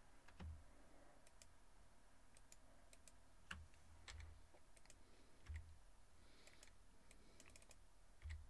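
Faint, scattered clicks of a computer mouse and keyboard over near silence, with a few soft low thumps.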